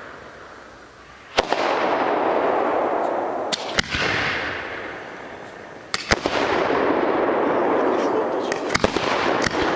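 50 mm aerial firework shells fired one after another: a series of sharp bangs from the launches and bursts, each followed by a rushing noise that fades over a second or two.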